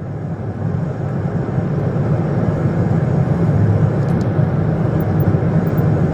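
A motor vehicle running, a steady low rumble of engine and road noise.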